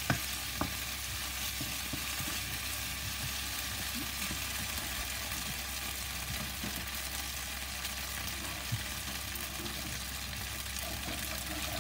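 Onion and tomato masala frying in a wok over high heat, a steady sizzle. Two sharp knocks of a wooden spoon against the pan come in the first second.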